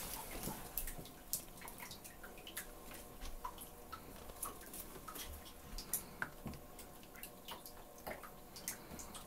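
Light, irregular clicking and tapping of ferrets scampering about on a tiled bathroom floor, with a faint steady hum underneath.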